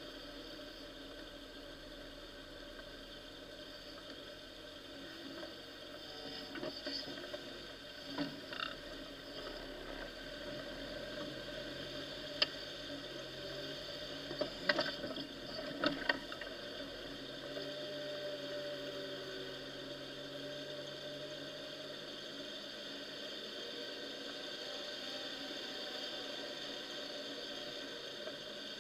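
Off-road vehicle driving through muddy water and puddles, its engine droning steadily and muffled, with water sloshing. A few sharp knocks and splashes come in the middle stretch.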